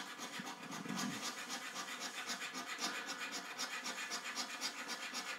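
A coin scratching the silver coating off a scratch card in quick, repeated back-and-forth strokes.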